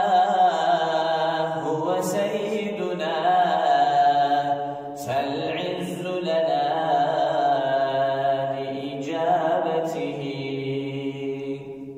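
A male voice chanting the closing line of an Arabic qasida unaccompanied, in long, drawn-out, wavering notes, and fading out at the very end.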